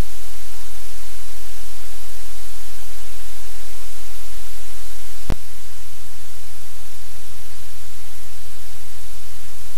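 Loud, steady hiss with a low hum beneath it, and a single sharp click about five seconds in, after which the hiss drops slightly.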